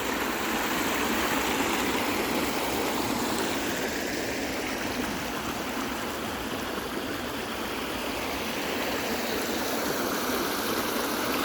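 Stream water running steadily over a low waterfall, a constant rushing splash.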